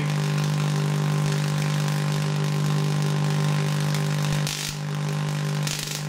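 Vacuum-tube-driven high-frequency coil discharge running: a steady 50-hertz hum with a hiss over it. About four and a half seconds in, and again near the end, the hum drops briefly and the discharge crackles while the tuning is adjusted, the sign of an oscillation that is not very pure.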